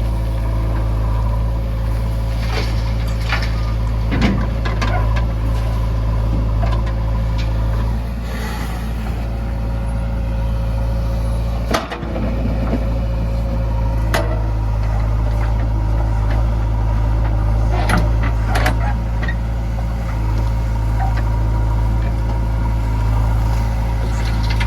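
Diesel engine of a JCB 3DX backhoe loader running steadily under load while it loads murrum into a truck, with a held whine over the engine note. Several sharp knocks and clanks break through, the sharpest about twelve seconds in.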